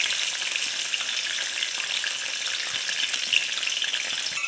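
Onion slices frying in hot oil in an iron kadai: a steady, crackling sizzle, stirred now and then with a metal spatula. It cuts off abruptly at the end.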